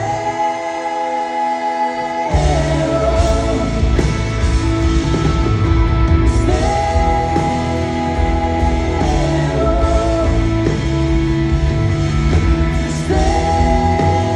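Live rock band with a woman singing long held notes over electric guitar, bass and drums. For the first two seconds only the voice and guitar carry, then the bass and drums come back in.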